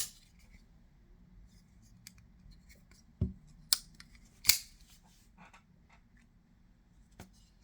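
Sparrow folding pocketknife being flicked open and shut, metal clicking as the blade snaps and locks. Three sharp clicks come between about three and four and a half seconds in, with fainter ticks after them.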